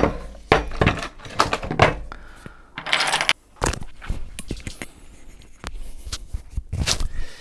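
Sharp clicks, clacks and knocks of airsoft gun parts being handled as a folding stock is fitted to the rear of a BRN-180S-style upper receiver, with a longer scraping rattle about three seconds in.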